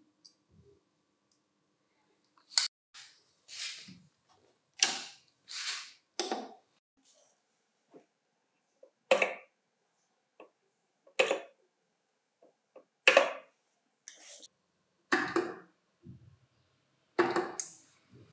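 A series of about nine short, sharp clicks and scrapes, spaced unevenly, from hands handling 18650 lithium cells and a nickel strip as the pack is positioned under spot-welder probes.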